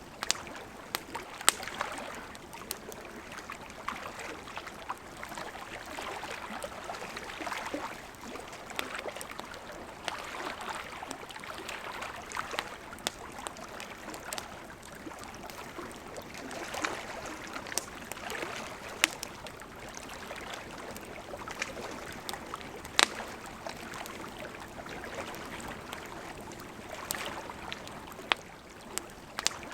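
Campfire crackling with frequent sharp, irregular pops, over gentle lake water lapping in soft swells.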